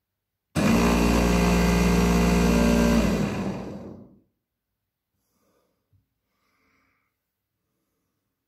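SilverCrest hand blender on its chopper bowl attachment, spinning the blade in an empty bowl. The motor starts suddenly, runs steadily for about two and a half seconds, then is switched off and winds down with a falling pitch over about a second.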